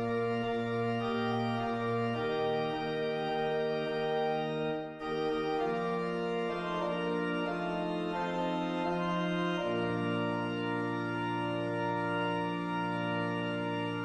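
Organ music: full sustained chords held and changing every few seconds over a low bass note, with a brief break about five seconds in.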